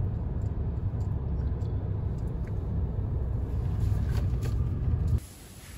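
Steady low rumble, strong in the bass and fluttering in level, that cuts off suddenly near the end.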